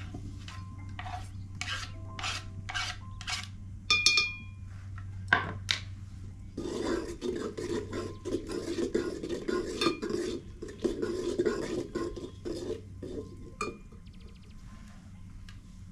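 Metal utensils on a metal cooking pot: scrapes and taps for the first few seconds, with one clang that rings briefly about four seconds in. This is followed by a metal ladle stirring in the pot, scraping rhythmically for about six seconds before it stops. A steady low hum runs underneath.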